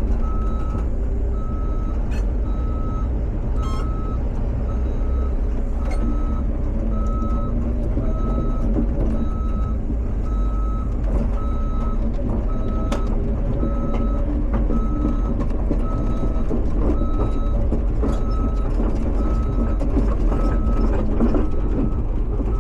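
Cat 320 excavator's travel alarm beeping steadily about once a second over its diesel engine running as the machine tracks, with a few sharp clunks.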